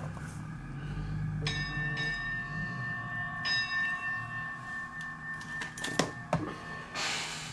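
A bell-like metallic ring, struck about a second and a half in and again about two seconds later, each ringing on for several seconds. A few light metal clicks come near the end.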